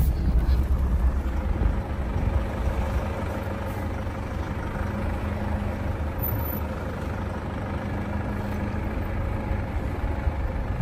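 Off-road vehicle driving slowly over a rough dirt track, heard from inside the cabin: a steady low rumble of engine and tyres.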